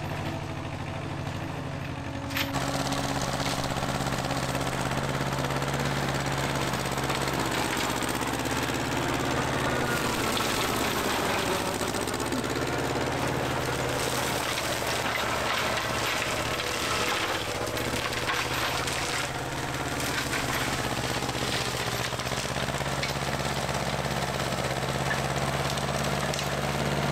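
Tractor engine running steadily while its chain flail mower cuts grass, with a broad clattering rush over the engine that grows louder about two and a half seconds in.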